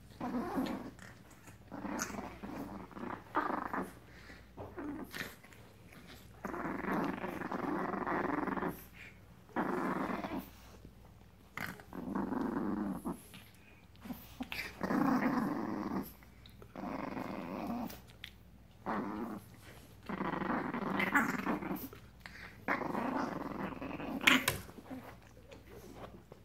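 Seven-week-old Frenchton puppies growling in play, in about a dozen rough bouts of a second or two each, with small clicks and knocks between them.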